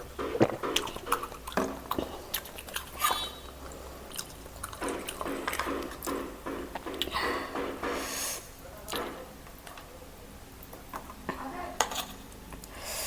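Close-miked eating sounds: irregular chewing and wet mouth smacks, with scattered sharp clicks.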